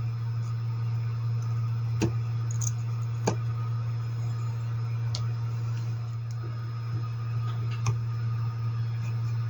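A steady low electrical hum, with a handful of light, sharp clicks and taps of small metal tools on the hair dryer's switch terminals while the old cord wires are being desoldered.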